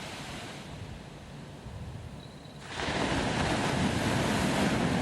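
Sea surf washing on a beach, a steady rush of water that grows much louder about two and a half seconds in.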